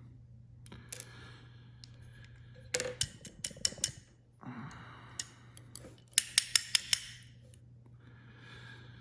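Small metal clicks and taps from handling the pins and springs of a disassembled deadbolt lock cylinder: a quick cluster of clicks about three seconds in and another about six seconds in.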